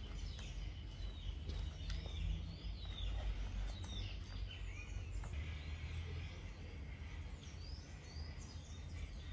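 Birds chirping outdoors: many short chirps that glide up and down, scattered through the whole stretch, over a steady low rumble.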